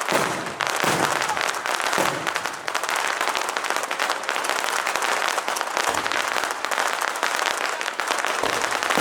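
Fireworks going off in a dense, unbroken stream of crackling pops, with a few deeper bangs among them.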